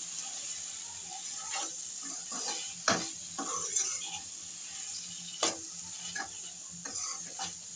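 Chopped capsicum, tomato and onion sizzling in a kadhai as a steel spatula stirs them in, a steady frying hiss broken by a few scrapes and knocks of the spatula against the pan, the loudest about three seconds in.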